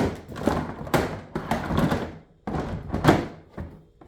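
Plastic Ryobi LINK crate knocking and clattering against the tool box beneath it as it is worked into place to latch, a string of thunks about every half second.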